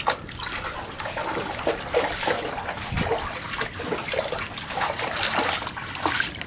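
Dogs wading through a shallow creek, the water splashing and trickling around their legs in an irregular run of small splashes.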